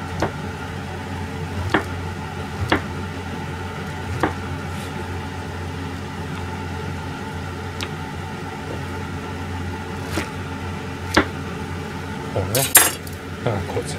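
A kitchen knife slicing a king oyster mushroom on a plastic cutting board: single sharp knocks of the blade on the board every second or few, then a quick run of cuts near the end, over a steady hum.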